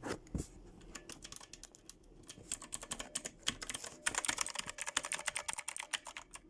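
Typing on a Redragon Kumara K552 mechanical keyboard with Outemu Blue clicky switches, a rapid run of sharp key clicks. The keystrokes come faster and louder from about four seconds in.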